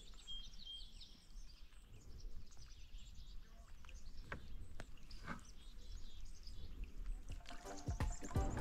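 Quiet canoe paddling on a calm lake: faint water sounds with a few soft splashes or knocks, and a few faint high chirps in the first second or so.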